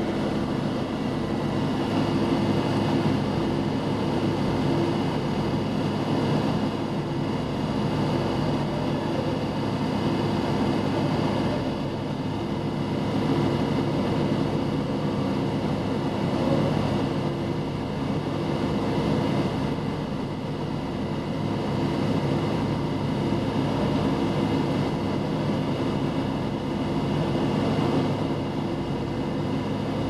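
Steady drone of a ship's engine-room machinery, with several constant hum tones over a broad rumble and no change throughout.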